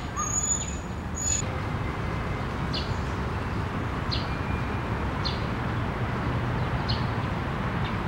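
Birds calling among the trees: a high whistled note twice in the first second and a half, then short high chirps repeating about once a second, over a steady low background rumble.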